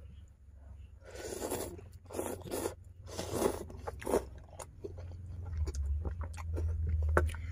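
Crunching, in about four short bursts roughly a second apart, over a steady low rumble that grows louder near the end.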